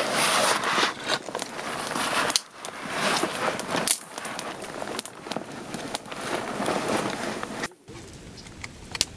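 Campfire crackling, with a rushing hiss that swells and fades. Near the end it drops off abruptly to a quieter background with one brief sharp sound.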